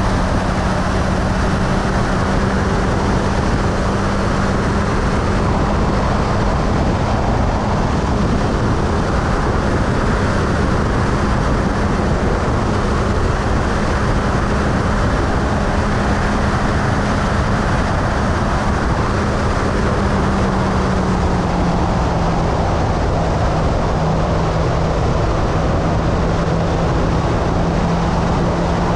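Motorcycle engine running at a steady cruise under a constant rush of wind and road noise. The engine note holds one steady pitch and drops slightly about twenty seconds in.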